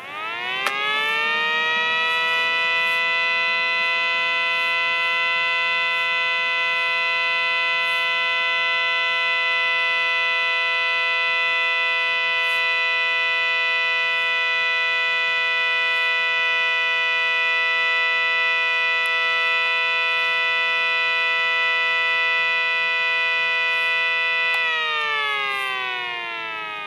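Mini ACA Banshee model warning siren winding up: its pitch rises over about two seconds and then holds a steady, loud, multi-toned wail for over twenty seconds. Near the end it winds down, the pitch falling and fading.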